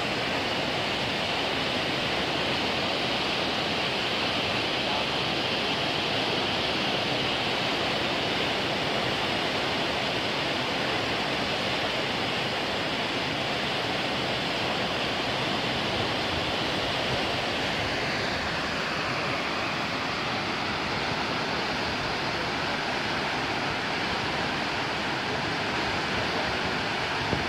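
Water released through an open sluice gate surging into a canal, a steady rushing of turbulent white water.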